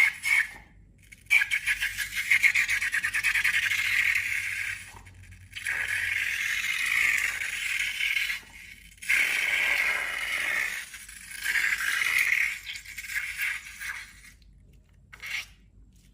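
Slime being worked and squished, giving a crackling, clicky scraping sound in several spells a second or a few seconds long with short pauses between, dying away near the end.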